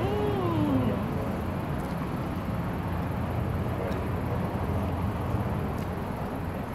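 Steady low rumble of outdoor street and parking-lot traffic. In the first second a short hummed "mmm" rises and falls in pitch.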